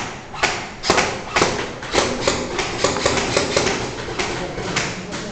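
Airsoft guns firing a rapid series of shots, about two a second, with sharp cracks that fade out near the end.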